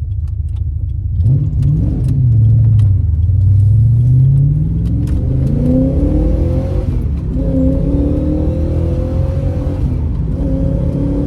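Holden 5.0-litre 304 V8 accelerating hard through the gears: the revs pick up about a second in, climb steadily, drop at a gear change about seven seconds in and again about ten seconds in, then climb again.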